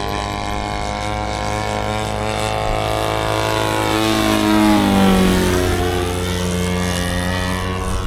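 Radio-controlled model airplane's engine running in flight and passing by: it grows louder to a peak about five seconds in, and its pitch drops as it goes past.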